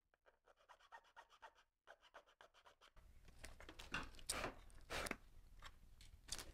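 Faint hand file rasping on the cut plastic edge of a helmet earmuff cup in quick, even strokes, several a second, deburring it to a smooth edge. About halfway through, the steady strokes give way to a few separate, louder scrapes.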